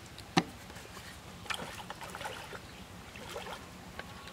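A sharp click about half a second in, then irregular splashing from a hooked fish fighting at the water's surface as it is played on a rod.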